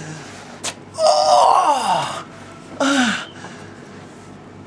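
A man's breathy groan of pain, falling in pitch over about a second, followed by a shorter pained vocal sound, from the sting of chest waxing.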